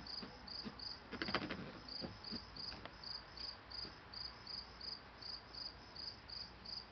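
Cricket chirping steadily, a high chirp repeating about four times a second. A brief rustling scratch about a second in.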